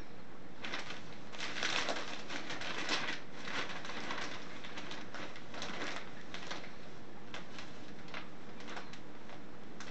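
Newsprint ad sheets crinkling and rustling as a cat rolls and squirms on them, in irregular bursts of crackles, busiest in the first half and sparser toward the end.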